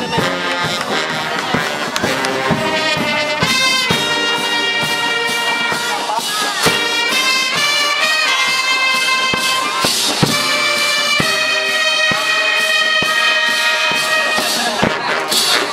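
Marching band playing live, its trumpets and trombones holding long chords that change every second or two over regular drum beats.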